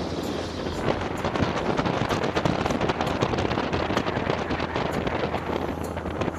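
Polaris Slingshot three-wheeler's engine running steadily while riding, under heavy wind buffeting on the microphone, with frequent brief crackles.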